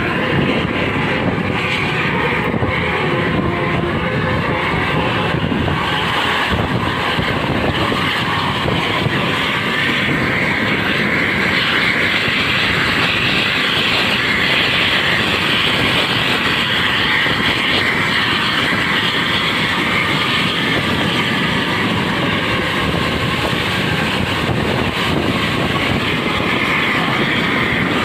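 Steady drone of a moving vehicle at speed: engine and road noise, unbroken and even in level, with no horn.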